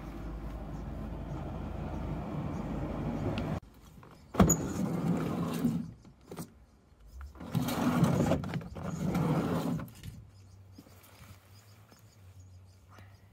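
VW Caddy Mk3 sliding side door being worked on its worn-out lower runner: a sharp clunk, then three rough grinding strokes of a second or two each as the runner bracket rubs metal on metal along the track. Its roller wheel has worn away, which makes the door hard to move and sound gross. Before that, a steady low mechanical noise cuts off suddenly a few seconds in.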